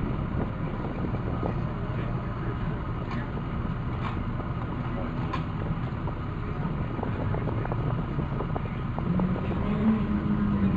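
Car driving slowly, its engine and road noise a steady low rumble heard from inside the car. A low drone comes in near the end and the level rises slightly.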